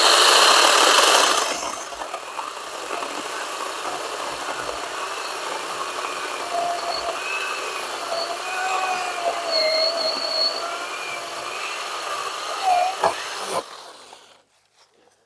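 A power saw running steadily while cutting, its pitch wavering a little under load, loudest at the start and stopping abruptly near the end.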